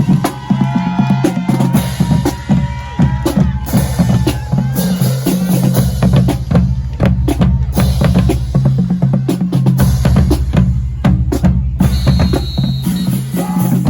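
Marching band drumline playing a steady, fast percussion groove, with snare drums over bass drums whose low tones step in pitch.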